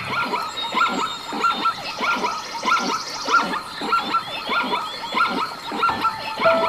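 Many short, high yelping calls from a group of small animals, about three a second and overlapping.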